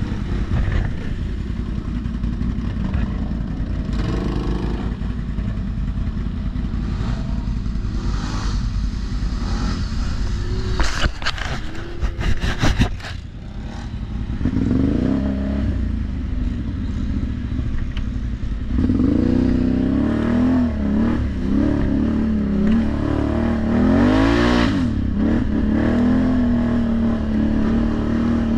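ATV engine running under way on a rough trail, its revs rising and falling several times in the second half. About eleven to thirteen seconds in, a run of sharp clattering knocks.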